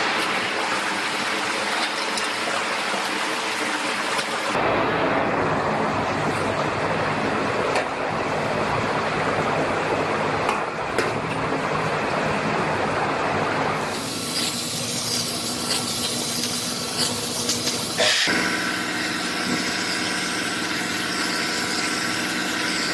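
Power tools cutting an aluminum pickup bedside: a steady hissing, grinding noise that changes sharply about four and a half seconds in, again near the middle, and once more later.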